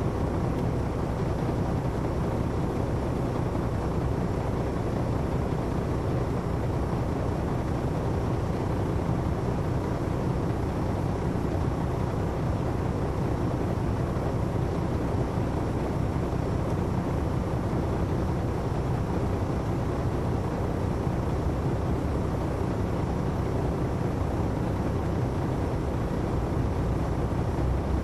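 Detroit Diesel Series 60 diesel engine of an MCI D4000 coach bus running steadily, heard from inside the bus cabin.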